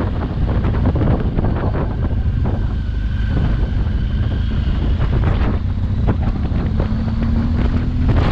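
Wind buffeting the microphone of a moving motorcycle, with the engine's note faintly underneath, rising a little in pitch near the end.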